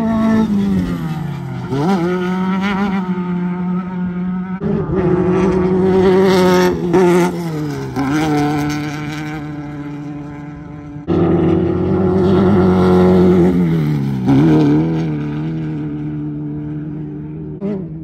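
Off-road race car engines revving hard as several cars go by one after another, the engine pitch dropping away after each pass. Two cars come in suddenly and loudly, a few seconds in and again about halfway through.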